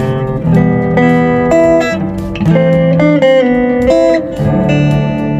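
Acoustic guitar played through a preamp DI box with its input gain turned up high, picking a melody over held bass notes, a new note or chord about every half second.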